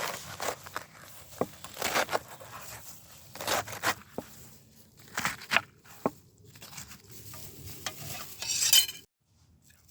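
Hands preparing food with utensils: irregular scraping and rustling strokes with a few light clicks, then a louder rustle near the end that cuts off suddenly.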